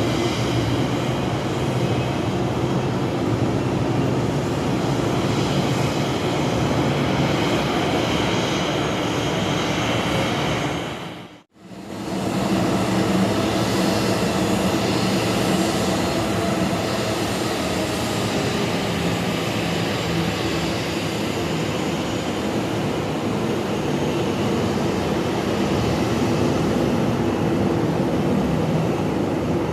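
Jet airliner engines running loud and steady, a dense roar with a steady hum in it, described as thunderous. The sound cuts out abruptly for under a second about eleven seconds in, then resumes.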